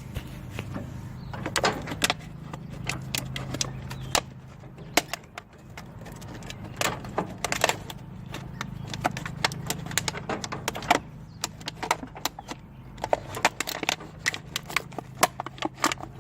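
Repeated clicks, taps and light rattles of a plastic water bottle being handled and fitted under a riding mower's oil drain plug as a makeshift drain funnel, over a steady low hum.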